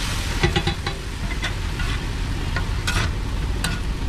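A metal spatula clinking and scraping on a flat griddle in scattered sharp strokes, over the sizzle of frying and a steady low rumble.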